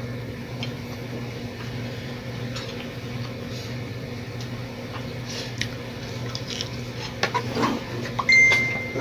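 Steady low electrical hum in a small room, with scattered light clinks of plates and utensils as food is served. A short high beep sounds near the end.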